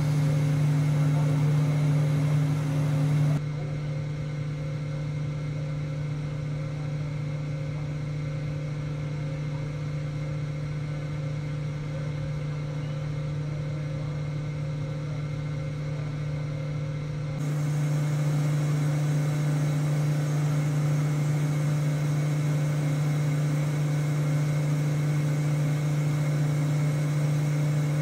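Robotic friction stir welding machine running with a steady mechanical hum as its rotating pin tool welds the metal seam of a rocket stage adapter. The hum drops in level about three seconds in and comes back up past the middle.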